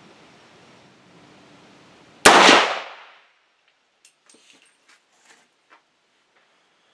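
A single shot from a 300 Blackout AR-15 rifle: one sharp report about two seconds in, ringing away within a second. A few faint ticks follow.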